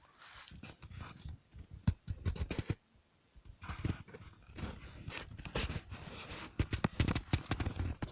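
Irregular footsteps and scuffing on a dirt trail, with dogs moving about alongside.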